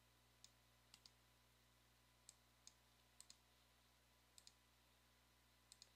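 Faint computer mouse clicks, about a dozen scattered singles and quick pairs, over near silence.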